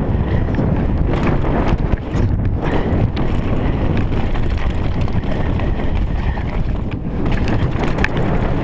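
Mountain bike riding down a loose gravel trail: wind buffeting the microphone over tyre noise on the gravel, with scattered clicks and rattles from the bike over bumps.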